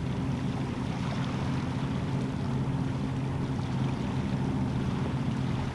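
Steady drone of a motorboat's engine running out on the water.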